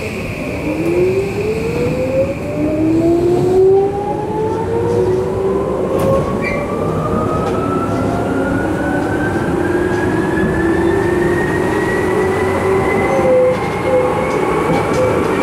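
Tokyu 8500 series electric train pulling away and accelerating, heard from inside the passenger car: the traction motors give a whine that climbs steadily from low to high pitch as speed builds, over the rumble of the wheels on the rails.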